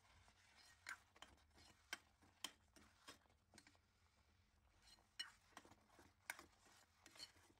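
Faint, scattered clinks of a steel spoon knocking against a stainless steel pot while thick semolina upma is stirred, about ten light taps spread over the stretch.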